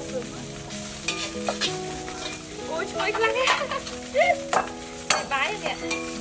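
A metal ladle stirring and scraping in a wok of frying food, with sharp clicks and scrapes against the pan over a steady sizzle.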